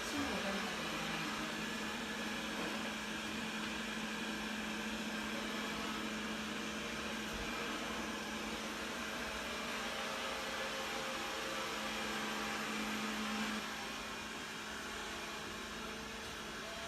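A steady machine hum over a hiss. The hum stops abruptly about three-quarters of the way through, leaving the hiss.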